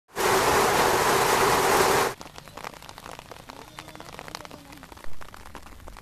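Heavy rain falling, loud and even for about two seconds, then cutting off suddenly to light rain with scattered sharp drip sounds. A brief louder sound comes about five seconds in.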